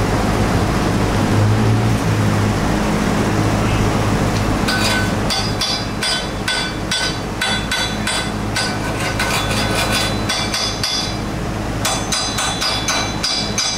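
A steel test piece being struck again and again with a hand hammer, in quick ringing metal taps several a second. The taps start about five seconds in, pause briefly near the end and then resume. A steady low hum from the shop's welding machines runs underneath.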